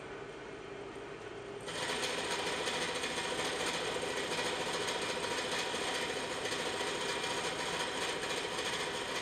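Carbide insert shell mill on a vertical milling machine taking a light cut, about ten thousandths of an inch deep, across the side of a 4140 steel block as the table feeds. The sound steps up sharply just under two seconds in as the inserts bite into the steel, then holds as a steady cutting sound with a fast even rhythm.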